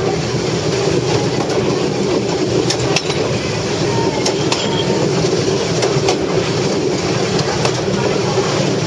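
Myanmar Railways railcar heard from on board as it runs along the track: a steady rumble with pairs of sharp clacks from the wheels crossing rail joints, about every second and a half.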